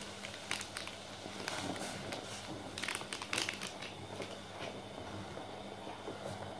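Slotted plastic spatula stirring and scraping in a metal pan, dissolving jelly powder in just-boiled water: scattered clicks and scrapes, busiest about three seconds in, over a steady low hum.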